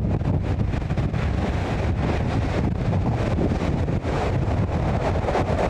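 Strong gale-force wind buffeting the microphone: a loud, steady low rumble with constant flutter.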